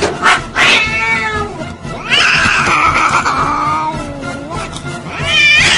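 Cat yowling in three drawn-out, wavering calls, the middle one the longest and falling in pitch, the last short and rising near the end: the defensive yowl of an upset cat being handled.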